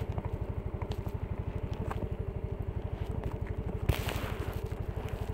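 Motorcycle engine running with an even, rapid low pulse. A single knock comes about four seconds in, followed by a rise in hiss.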